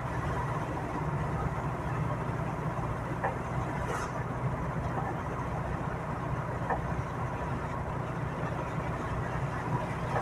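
Steady engine and tyre noise heard inside a vehicle cab driving on a rain-soaked road, with rain on the windscreen. A few faint clicks come through partway.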